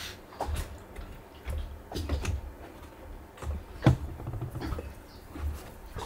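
Light footsteps and handling knocks on a boat's deck, with one sharper knock about four seconds in as items are set down, over a low rumble of wind on the microphone.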